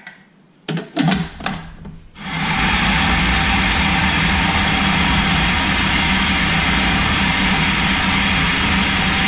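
Cookworks food processor switched on about two seconds in, its motor and blade running loudly and steadily as it blends anchovies and oil into an emulsion. A few knocks come just before, as the pusher is fitted into the lid.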